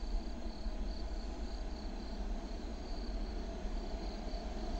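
Crickets chirping in a high trill that pulses about twice a second, over a low rumble.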